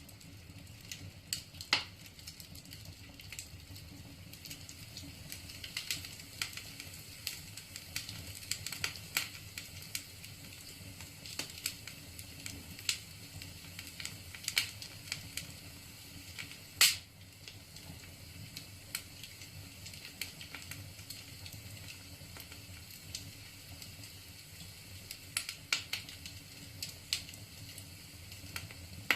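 Wood fire burning in a fireplace: irregular crackling and snapping of the burning logs over a low hiss, with one loud pop a little past halfway.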